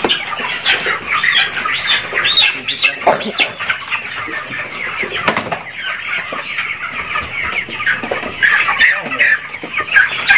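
A crowd of live white chickens clucking and squawking continuously while they are handled in crates, with bursts of wing flapping.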